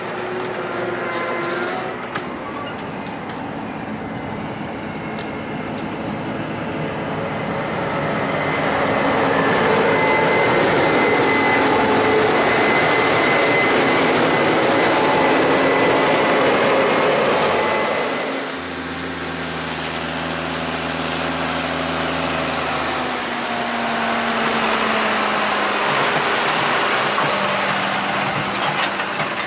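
Diesel engines of heavy harvest machinery running, with a dense machine noise that grows louder toward the middle and drops off about eighteen seconds in to a lower, steady engine drone.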